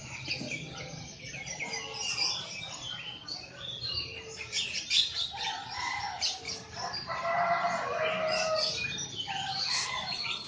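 Male blue-crowned hanging parrot (serindit) giving rapid, high-pitched chirps and twitters. A lower, louder call joins about seven seconds in and lasts a second or so, over a faint steady hum.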